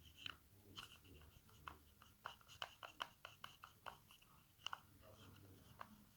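Slime being mixed, giving soft, irregular sticky clicks and pops.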